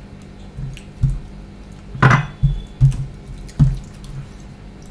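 Fingers mixing rice with thin fish curry on a stainless-steel plate: wet squelching with a handful of soft knocks against the plate, the loudest about two seconds in.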